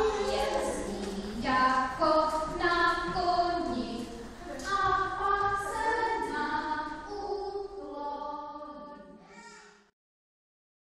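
A children's song with several voices singing together plays and fades out about nine seconds in, then cuts to silence.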